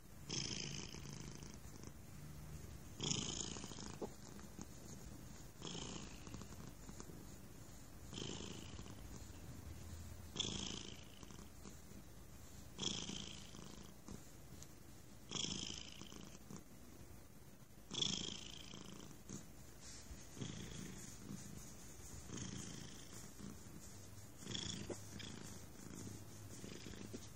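Domestic cat purring loudly while having its cheek and chin scratched, the purr swelling in a regular rhythm about every two and a half seconds.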